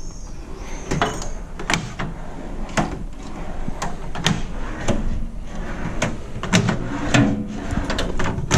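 Drawers of a new USAG Starter tool trolley being pulled open and pushed shut one after another, with a string of sharp clacks and knocks.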